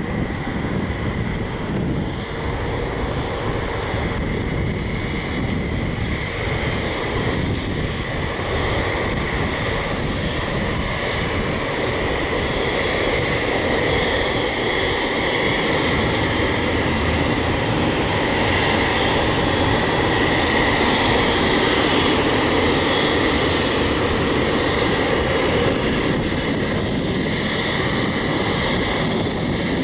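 Boeing 777-300ER's GE90-115B jet engines at taxi power: a steady whine over a rumble, swelling a little in the middle as the airliner rolls past.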